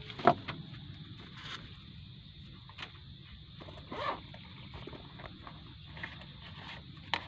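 Paper banknotes being handled, folded and creased by hand: scattered small crackles and taps, a sharper one just after the start, over a steady faint high buzz.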